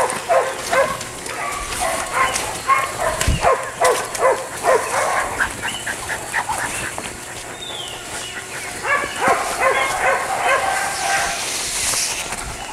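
A dog barking in quick runs of short barks, about three a second, in two bouts with a pause of a few seconds between them.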